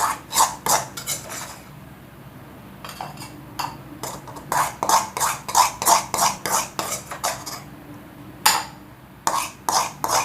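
A spoon scraping and knocking against a pan and a tumbler as fried onion and masala is transferred into the tumbler. The clinks and scrapes come about two or three a second, with short pauses about two seconds in and near the eight-second mark.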